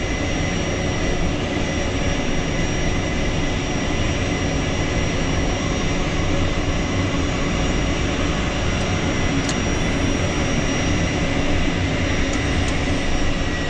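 Embraer Phenom 300E's Pratt & Whitney Canada PW535E turbofans heard from the cockpit: a steady jet whine and rumble with several held tones. Engine number 1 is in its start, just after light-off, with engine number 2 already running at idle.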